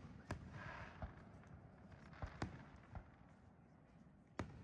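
Aerial firework shells bursting: about six sharp bangs at uneven intervals, the loudest about two and a half seconds in.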